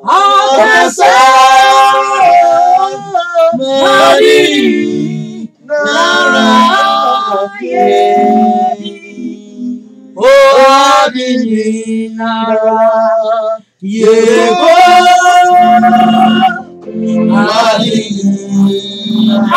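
Gospel worship singing with a woman's voice leading, sung loudly in phrases of a few seconds with short breaks between them, over a steady low held note.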